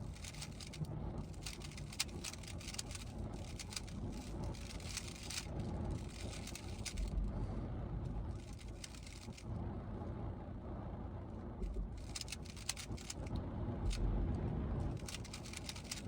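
3x3 Rubik's cube being turned quickly by hand: runs of rapid plastic clicking with short pauses between them, over a low steady rumble.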